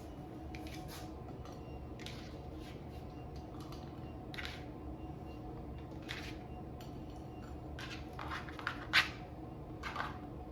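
Knife cutting through firm, set chocolate fudge: several short, scratchy slicing strokes spaced a second or two apart, the sharpest about nine seconds in.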